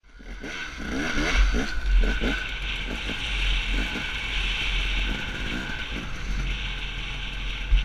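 Dirt bike engine revving up and down as the rider accelerates, with several quick rising revs in the first couple of seconds and then a steadier run, under heavy wind rumble on the bike-mounted camera's microphone.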